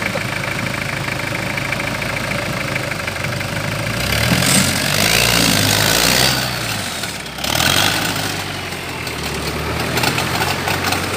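Tubular-frame 4x4 off-road buggy's engine idling, then revved up about four seconds in and held high for a couple of seconds. It drops away briefly and is revved again before settling back to a lower run.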